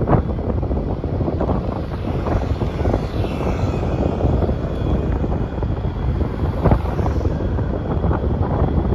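Heavy wind buffeting the microphone on a moving open vehicle, a dense, gusting rumble mixed with road and traffic noise.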